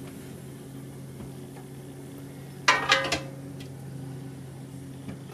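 Glass canning jars, held in a metal jar lifter, knocking as one is lifted from the pressure canner and set down: a quick cluster of three ringing clinks about two and a half seconds in. A steady low hum runs underneath.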